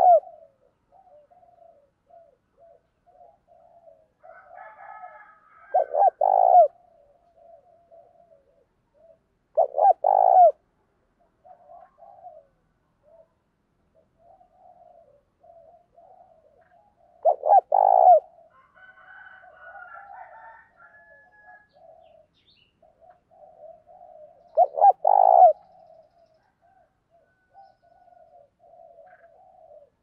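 Spotted dove cooing: a loud, deep coo phrase repeated about every four to seven seconds, with softer cooing in between.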